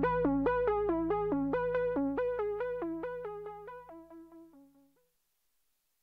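Background music: a synthesizer plays a quick, repeating pattern of keyboard notes over a held low tone, fading out about four and a half seconds in.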